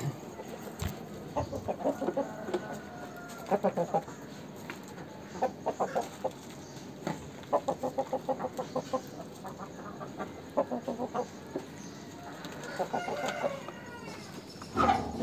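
Chickens clucking in short, quick runs of notes, several times over, with a longer drawn-out call about thirteen seconds in.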